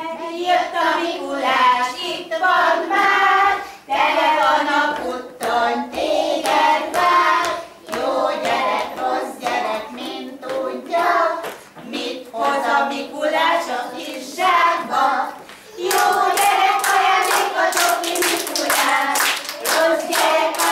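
A group of young children singing a song together. About sixteen seconds in, rhythmic hand clapping joins the singing.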